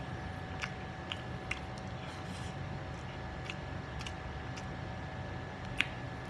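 Close-miked eating sounds: a person chewing fried sausage and white rice with his mouth, making scattered soft wet clicks, with one sharper click near the end, over a steady background hum.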